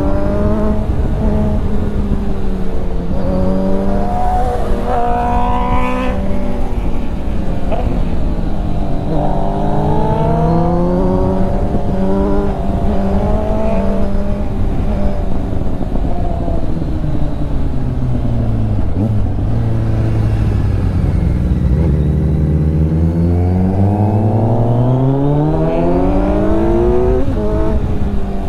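Kawasaki Z900's inline-four engine heard from the rider's seat at speed. The revs climb for the first few seconds and swing up and down, then fall steadily to their lowest about two-thirds of the way through, and climb again near the end. Wind rushes over the microphone throughout.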